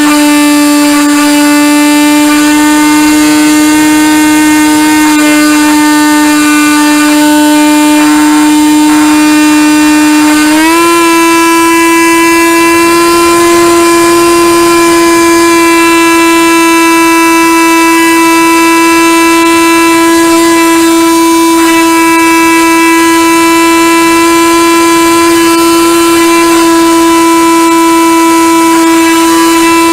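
Radio-controlled model airplane's motor and propeller, picked up by a camera on board: a loud steady drone that steps up slightly in pitch about ten seconds in.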